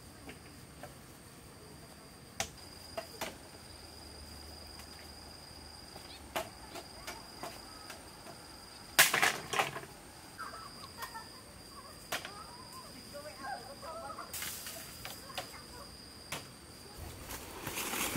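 Bamboo poles being handled: scattered knocks and clacks of wood on wood, the loudest a quick cluster of knocks about nine seconds in, then rustling through leaves and grass near the end. A steady high insect drone runs underneath.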